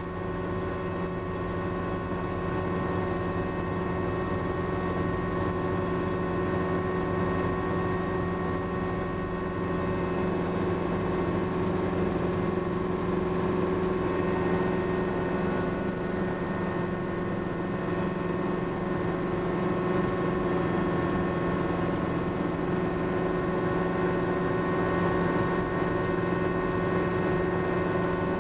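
Schweizer 300 helicopter's four-cylinder piston engine, rotors and transmission heard from inside the cabin while hover-taxiing low. It is a steady, dense drone made of many held tones, with no change in pitch.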